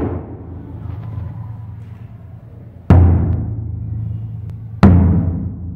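Large barrel-shaped taiko drum struck hard with bachi sticks, one heavy stroke at a time. Each stroke gives a deep boom that rings out slowly. The ring of one stroke dies away at the start, then two more strokes land about two seconds apart.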